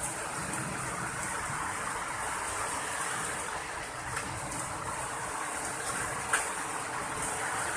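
Heavy rain with hail falling: a steady hiss of rain, with a few sharp ticks of hailstones striking. One louder knock comes about six seconds in.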